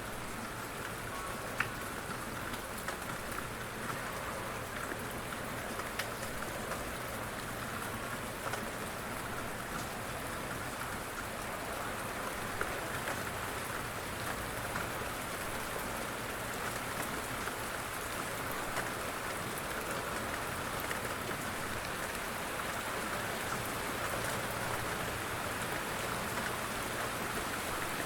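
Light rain falling steadily, with small scattered drop ticks over an even hiss.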